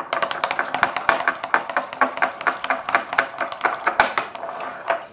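Metal spoons stirring thick mayonnaise-based sauces in small glass bowls, clinking rapidly and unevenly against the glass.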